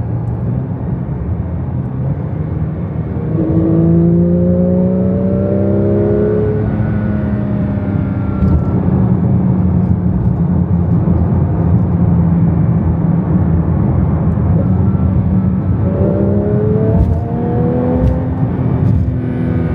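Porsche 911 GT3 RS (992) 4.0-litre naturally aspirated flat-six running at freeway speed over steady road noise. The revs climb as it accelerates, a few seconds in and again near the end.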